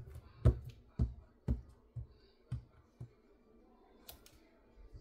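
An ink pad tapped repeatedly onto a clear silicone stamp lying on its plastic sheet: about seven light knocks, two a second, getting fainter and stopping about three seconds in. Around four seconds in comes a brief crinkle of the plastic stamp sheet being handled.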